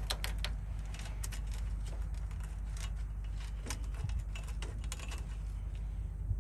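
Scattered light clicks and rattles of a plastic coiled air line and its metal fitting being handled and worked into place, over a steady low rumble.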